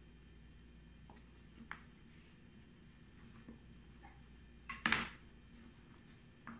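Faint ticks of hands gathering chayote peels and pieces on a cutting board. About five seconds in, a knife is set down on the board with one short clatter, the loudest sound, and a lighter knock comes near the end.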